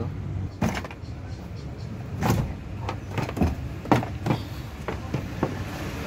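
Plastic retaining clips of a first-generation Chevrolet Aveo's interior door trim panel snapping loose as the panel is pulled off the door: a series of separate sharp clicks and knocks.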